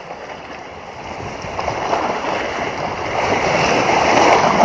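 Rushing noise of sea waves and wind, swelling steadily louder.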